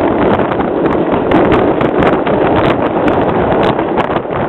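Bernina Express train running, heard from on board: a steady loud rushing noise with wind on the microphone and irregular sharp clicks throughout.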